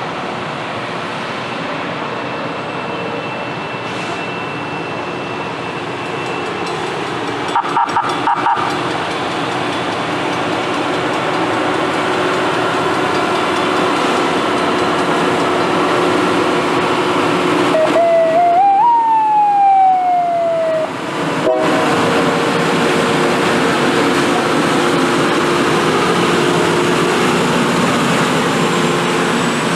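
Loram rail-grinding train working along the track: its grinding stones on the rails make a steady, loud, rushing noise. A few short tones sound about eight seconds in, and one tone falls in pitch near twenty seconds.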